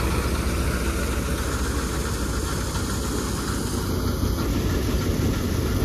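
Swaraj 963 FE tractor's three-cylinder diesel engine running steadily, powering a bhusa machine that is threshing wheat, the machine's running noise mixed in with the engine.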